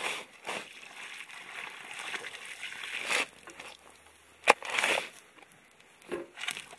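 Water poured from a bucket into a freshly dug planting hole, splashing and sloshing onto the soil for about three seconds. Then a sharp knock followed by the scrape and fall of soil thrown from a shovel.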